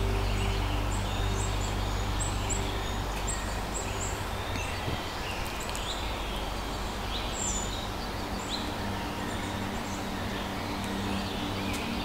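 Small birds chirping, short high calls repeated every second or so over a steady low background rumble.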